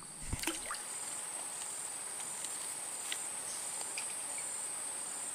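Steady outdoor insect chorus: a continuous high-pitched trill, with a second call pulsing under it a little faster than once a second.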